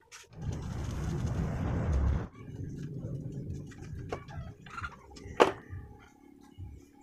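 A rushing noise for about two seconds that cuts off suddenly, then a few light knocks and one sharp metal clank, about five and a half seconds in, that rings briefly: the steel tube frame of a folding table being handled.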